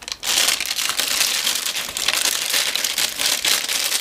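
Clear plastic bag crinkling and rustling as it is handled, wrapped around a handheld wireless microphone being lifted out of its foam packing. The crackle starts just after a brief pause and goes on steadily.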